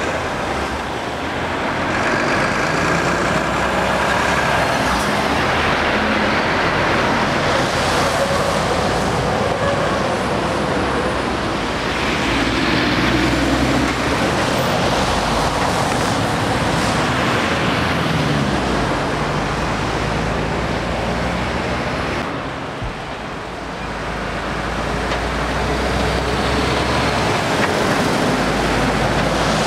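Heavy articulated lorries driving past close by one after another, diesel engines pulling and tyres on the road, with a brief lull about two-thirds of the way through.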